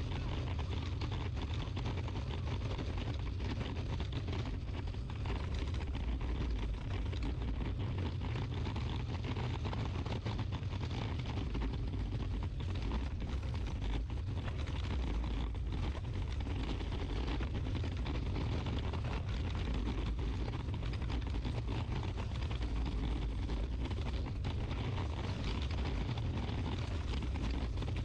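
Steady low rumble of outdoor background noise, unchanging throughout.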